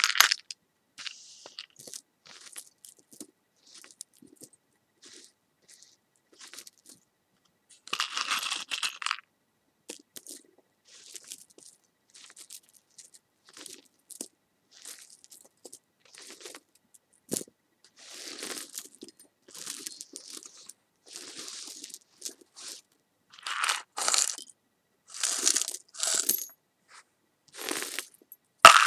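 ASMR trigger sounds: irregular crisp crunching and crackling in short bursts with pauses between them, loudest about eight seconds in and in a cluster near the end.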